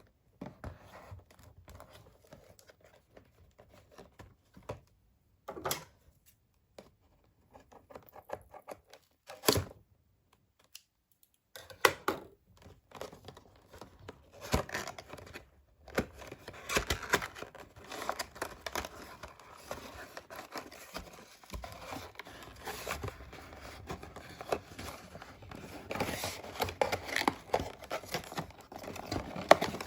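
Barbie doll packaging being opened by hand: cardboard and plastic crinkling, tearing and being cut, with scattered sharp clicks and snaps at first, then near-continuous crackly rustling from about halfway through.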